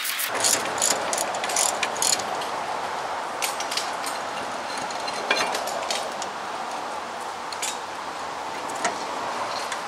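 Ratchet wrench clicking on the 17 mm caliper bracket bolt of a rear disc brake, with metal clinks: a quick run of clicks in the first two seconds, then scattered clicks and clinks over a steady hiss.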